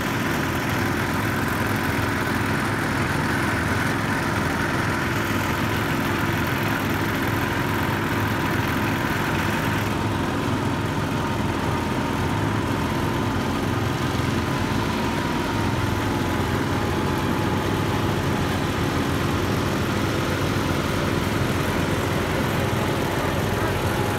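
Vintage garden tractor engines running steadily as the tractors are driven in a group, the engine of the tractor carrying the camera loudest, with the pitch dipping slightly about two-thirds of the way through.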